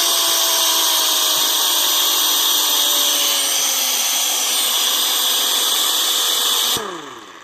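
Old pneumatic impact wrench running free on low air pressure: a loud hiss of exhaust air over a steady motor whine that sags slightly. Near the end the trigger is let off and the motor whines down.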